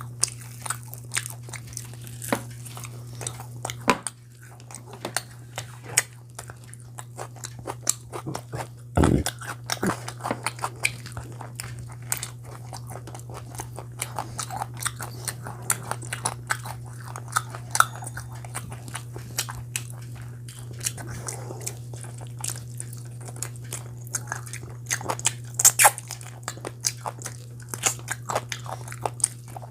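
Close-miked eating sounds: a person chewing and biting food, with many short, sharp crunches and mouth smacks, one heavier bite about nine seconds in, over a steady low hum.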